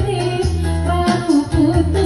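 A woman singing an Iban pop song live into a microphone over amplified backing music with a steady bass line, heard through a PA system.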